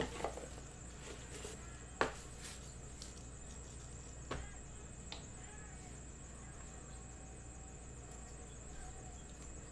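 Handling of a cardboard trading-card box and its clear plastic card case: a handful of sharp taps and clicks, the loudest about two seconds in, over faint steady room noise.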